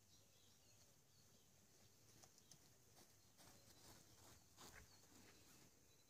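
Near silence: faint soft footsteps and a puppy's paw steps on grass, scattered taps, with a few faint bird chirps.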